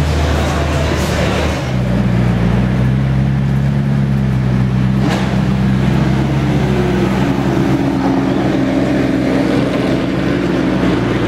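Koenigsegg One:1's twin-turbo V8 idling steadily. A lower engine hum in the first second and a half gives way to the steady idle.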